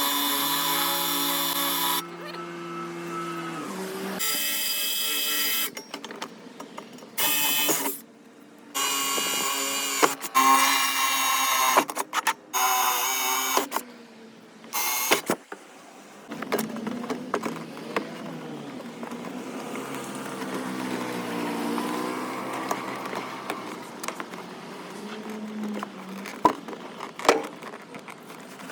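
A power tool running in repeated bursts of a few seconds each with a high whine, stopping and starting several times and falling silent about halfway through. After that there are only quieter, shifting sounds.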